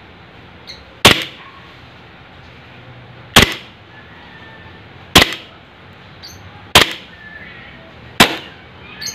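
DBELL G34 JW3 toy pistol fired five single shots through a chronograph, each a sharp crack, spaced about one and a half to two seconds apart.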